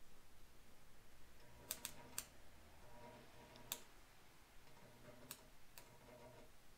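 Faint sharp snaps, about six scattered over a few seconds, and a faint buzz that comes and goes as an antique electric arc engraving pencil's tip sparks against a small tap while writing on it. Otherwise near silence.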